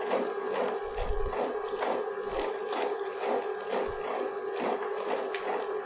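Butterfly Rhino Plus tabletop wet grinder running, its cylindrical stones turning in the steel drum through rice batter: a steady hum with a regular churning pulse about four times a second.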